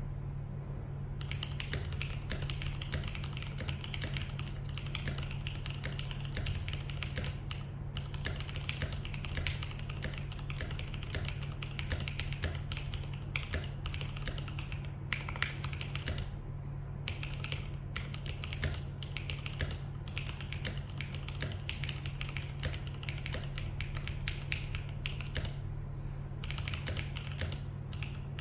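Typing on an LCK75 mechanical keyboard with Jwick T1 switches and Shenpo keycaps: fast runs of keystrokes broken by short pauses, over a steady low hum.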